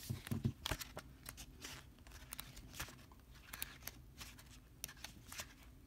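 Paper pages of a thick booklet being flipped and thumbed through by hand: a run of short, irregular rustles and crisp flicks.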